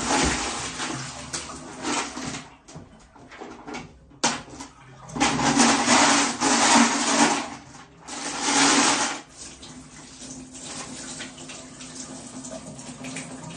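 Water splashing and pouring out of a small plastic fish tank as it is tipped and rinsed over a bathtub, in three loud bursts, the last ending about nine seconds in, then a quieter trickle.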